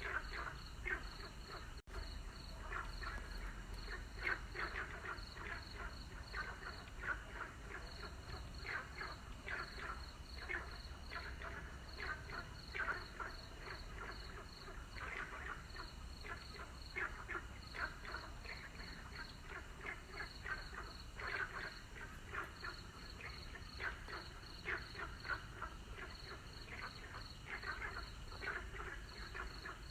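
Chorus of many frogs calling, with short croaks overlapping densely throughout, over a steady, regular high-pitched pulsing.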